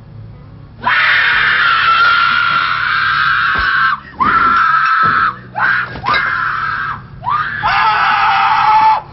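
High-pitched screaming, starting about a second in: one long scream of about three seconds, then a string of shorter shrieks that break off and start again, lower in pitch near the end.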